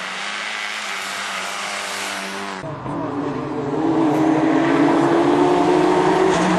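Rally car engine running at high revs as the car approaches through a bend, with a strong hiss of tyres on a wet road in the first part. About two and a half seconds in the sound changes abruptly to another approaching rally car, its engine growing louder.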